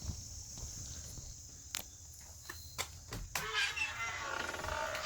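Crickets and other insects chirring steadily in a high, even drone. There are a few sharp clicks, and from about three and a half seconds in a wavering pitched sound comes over it.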